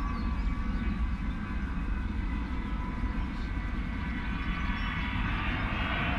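Avro Vulcan bomber's four Rolls-Royce Olympus turbojets in flight: a deep steady rumble, with a whine that rises in pitch and grows louder about five seconds in as the bomber comes closer.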